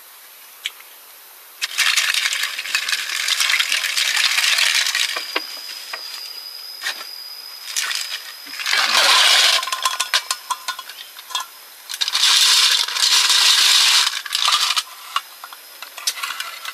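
Snail shells clattering and clinking against each other and a cooking pot, in three bursts of a few seconds each.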